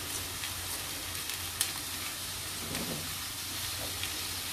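Aubergine frying in a pan of hot oil: a steady sizzle with a few faint crackles.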